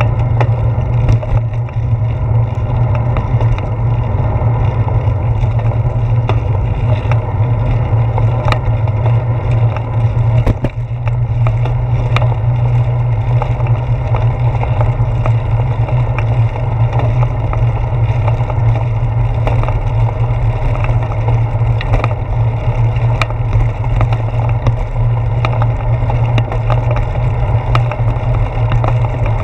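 Steady low rumble of wind and tyre noise picked up by a handlebar-mounted GoPro Hero 4 on a bicycle rolling along wet asphalt and then brick pavement, with frequent small clicks and rattles as the bike moves over the road.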